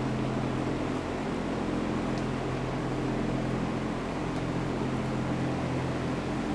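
Steady machine hum with a few fixed low tones, even in level throughout.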